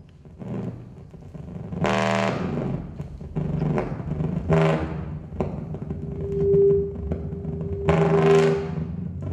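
Soprano saxophone played in free improvisation: a series of short, overtone-rich blown bursts, then a steady held note from about six seconds in, over a low continuous sound underneath.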